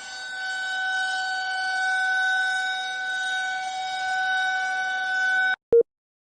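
Emergency-alert siren sounding one steady, held pitch with several overtones, swelling and fading in loudness. It cuts off abruptly near the end, followed by a single short beep.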